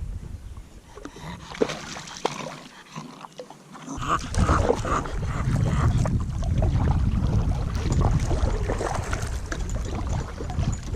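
A bulldog drinking water, lapping and splashing noisily, starting about four seconds in.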